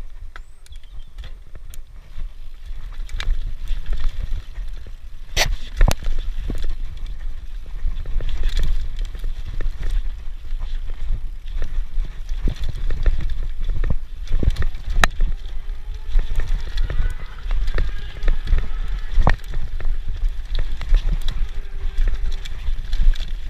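Mountain bike riding fast down a loam dirt trail: a steady rumble of wind and tyre noise on the body-mounted microphone, with the bike rattling and sharp knocks as it hits bumps and roots, the loudest a few seconds in and again about 15 and 19 seconds in.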